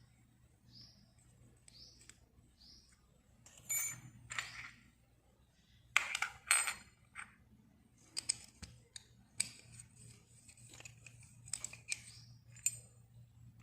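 Small metal sewing-machine shuttle parts being handled and cleaned by hand: irregular clinks, clicks and scrapes of metal on metal, loudest about four and six seconds in.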